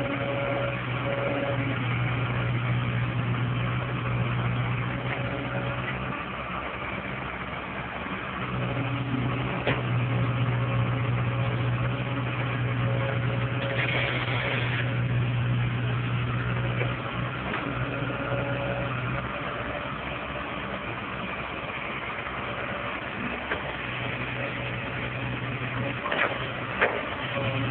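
Komatsu crawler excavator's diesel engine running as it digs, its engine note rising and dropping every few seconds as the load changes, with a few sharp clanks.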